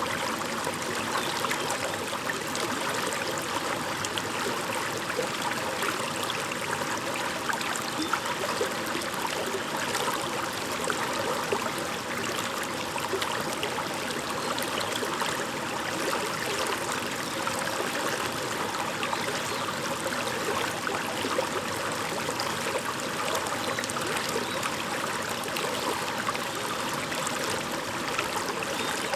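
A shallow stream babbling steadily over stones, a continuous rush of water flecked with small splashes and trickles.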